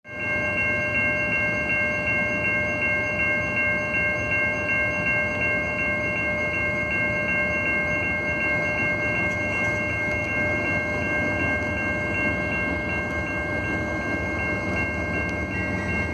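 Railway level-crossing warning bell ringing steadily in fast, even strikes. Under it is the low rumble of an approaching freight train led by GE ES44DC diesel locomotives.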